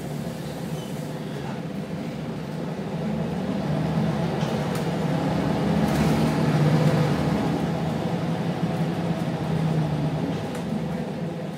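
Scania diesel engine and drivetrain of a Wright Solar single-decker bus, heard from inside the passenger saloon while the bus is moving. The engine works harder and gets louder through the middle, then eases off near the end.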